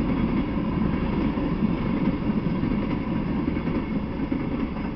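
Freight train cars rolling past on the rails: a steady, dense rumble of wheels on track from tank cars and a hopper car, easing slightly near the end as the last car goes by.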